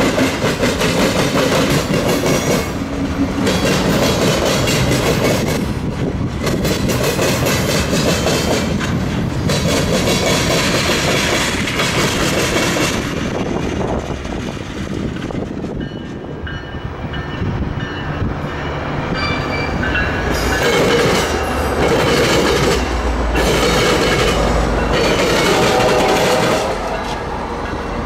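Freight cars rolling over a railroad diamond crossing, the wheels banging over the crossing in a regular clickety-clack that stops once the last car clears, about halfway through. Then a commuter train's diesel locomotive approaches with a low rumble that builds toward the end.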